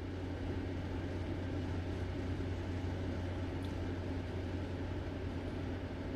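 Steady low hum with an even hiss: room background noise.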